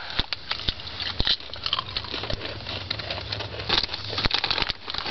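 Typing on a small laptop keyboard: quick, irregular key clicks, over a low steady hum.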